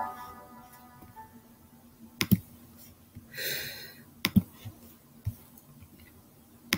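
Closing music of a devotional video dies away in the first second, then three sharp clicks at the computer about two seconds apart, with a brief rustle between the first two.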